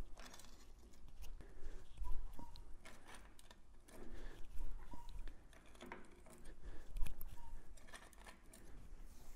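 Hand-operated sheet-metal shrinker biting into a strip of sheet steel: irregular crunching clicks every second or so as the jaws grip and gather the metal, shrinking the flange to form a tight bend.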